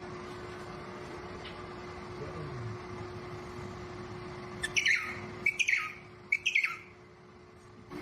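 Three short, high calls from a small animal, each sliding down in pitch, over a steady hum.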